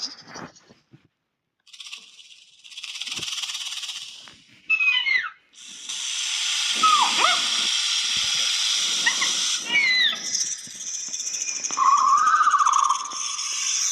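Creature sound effects: a series of snake-like hisses, short at first and then long and sustained, with brief gliding cries and squeals mixed in.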